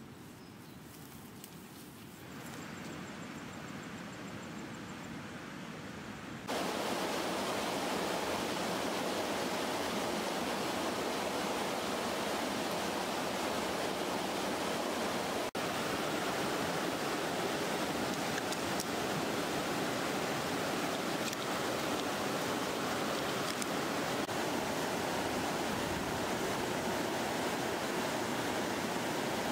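Steady rushing of a river's flowing water, a constant hiss that comes in suddenly and loud about six seconds in, after a quieter stretch of faint outdoor ambience.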